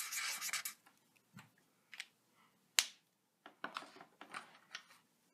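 Felt-tip marker scrubbing back and forth on paper, filling in a small black circle, stopping under a second in. Then a few small, sparse clicks and taps, the sharpest about three seconds in.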